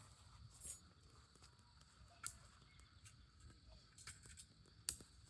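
Faint wood campfire crackling: a few sharp pops scattered over a low, steady rumble.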